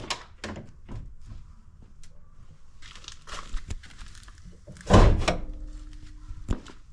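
Hood of a 1977 Ford LTD being unlatched and raised: scattered clicks, then a loud metal thunk about five seconds in with a brief ringing tone after it, and another sharp click near the end.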